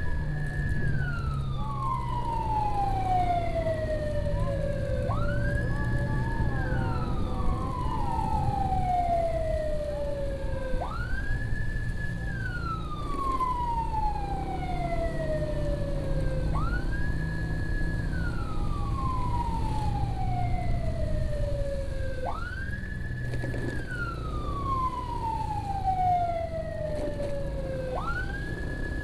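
Electronic emergency siren on a slow wail: each cycle sweeps up quickly, holds high for about a second, then falls slowly, repeating about every five and a half seconds. Underneath runs the steady sound of a motorcycle's engine and road noise.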